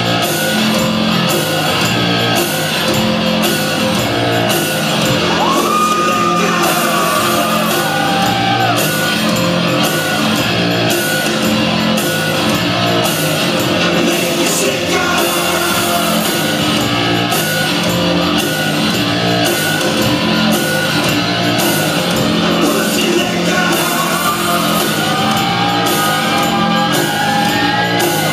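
Loud rock music with a steady beat of about two strokes a second and sung vocals, with sliding notes twice, echoing in a large hall.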